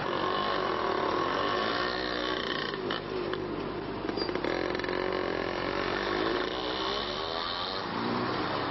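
A vehicle's motor running in city traffic, its whine gliding up and down in pitch as it speeds up and slows.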